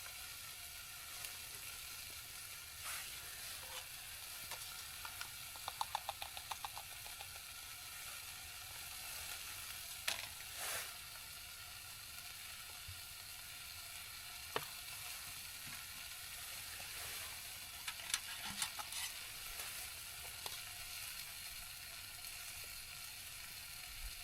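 Bacon sizzling steadily in a frying pan, with scattered clinks and knocks and a quick run of taps about six seconds in as pancake batter is mixed.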